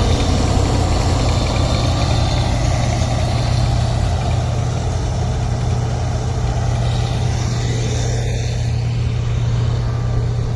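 Engine of harvesting machinery running steadily, with a constant low hum.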